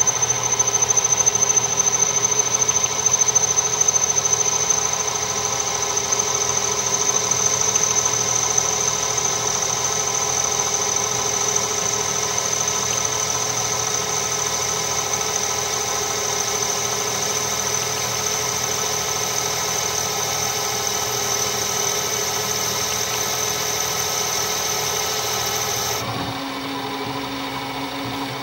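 Metal lathe taking a facing cut across a small brake drum with a carbide-insert tool: a steady machining noise with a high whine over the running lathe. Near the end the high whine cuts off suddenly, leaving the lathe running with a lower, quieter hum.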